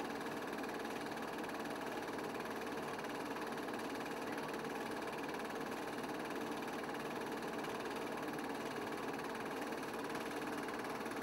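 A steady mechanical whirring hum that never changes in pitch or loudness.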